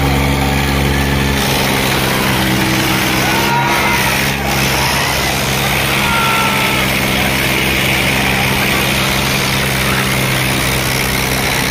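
Eicher and Solis tractor diesel engines running at steady high revs, pulling hard against each other in a tug-of-war, so loaded that the tractors' fronts rear up. Crowd shouting and a few whistles sound over the engines.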